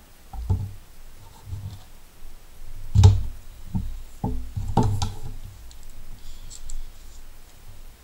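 Handling noise: a series of knocks and clunks as a knife, its sheath and tools are picked up and set down on a tabletop, the loudest about three seconds in.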